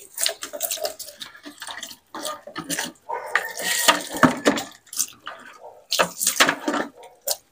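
Water sloshing and splashing in plastic basins as it is scooped up and poured from a pail, in irregular bursts with short pauses.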